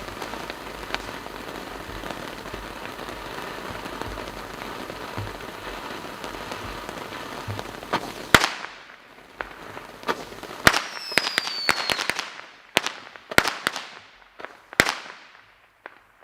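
A 200g multi-shot firework cake firing. An even hiss with light crackle runs for about eight seconds, then sharp, loud reports go off one after another, about a dozen over the last eight seconds, with a brief falling whistle among them.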